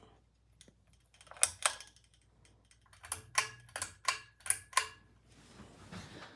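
Two sharp clicks, then a quicker run of about six more, over a faint low hum.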